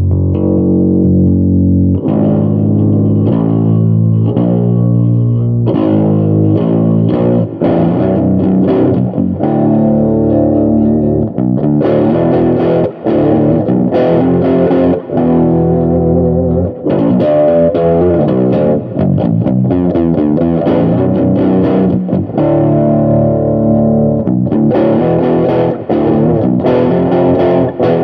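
Distorted eight-string electric guitar played through an amplifier, picked up by a phone: a blues piece of chords and runs of single notes.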